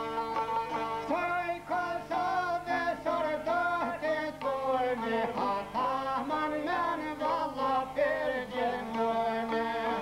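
A male voice singing an Albanian folk song in a wavering, ornamented melody over two plucked long-necked lutes. The lutes play alone for about the first second, and the voice breaks off shortly before the end while the lutes carry on.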